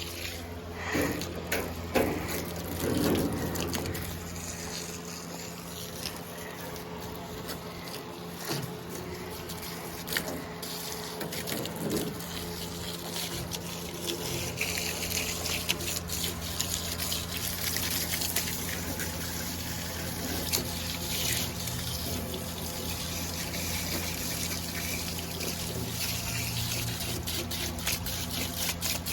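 Water from a hose spraying and splashing inside a truck cab as the interior is rinsed out, growing louder about halfway through, with a few knocks near the start and a steady low hum beneath.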